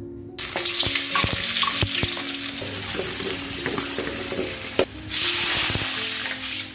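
Sliced garlic, shallots and chillies dropped into hot oil in an aluminium wok, sizzling loudly from about half a second in while a wooden spatula scrapes and stirs them. About five seconds in, water poured into the hot wok flashes into a louder hiss.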